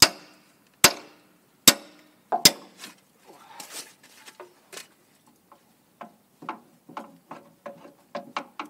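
Hammer striking steel on a skid steer's loader arm, knocking at the lift-cylinder pin to drive it out. Sharp ringing blows about a second apart come first, the last one doubled, followed by lighter, irregular taps and clinks.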